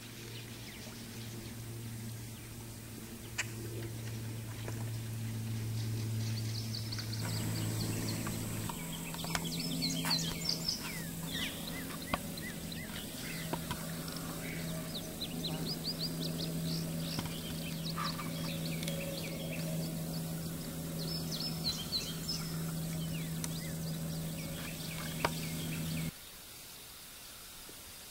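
Birds calling in repeated series of quick, high chirps over a steady low hum, the chirping stopping abruptly near the end.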